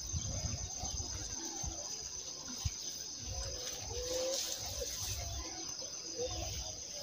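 Steady high-pitched insect chorus of crickets chirring, with a faint short animal call near the middle and intermittent low rumbling underneath.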